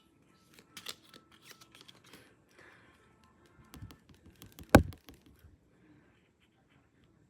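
Album packaging being handled: short rustles and crinkles with scattered light clicks, and one sharp, loud tap about two-thirds of the way through.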